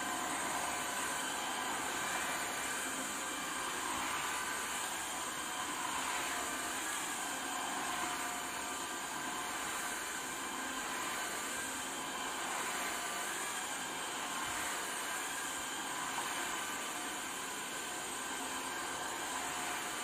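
Cordless stick vacuum cleaner running steadily: a constant motor whine over the rush of air as it is pushed across a tiled floor.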